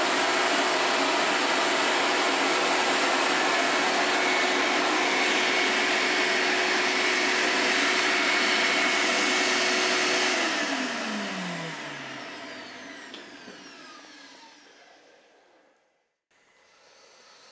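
A 6-horsepower, 16-gallon shop-vac runs steadily while vacuuming up sawdust through its hose. About ten seconds in it is switched off, and its motor winds down, the hum falling in pitch and fading over about five seconds.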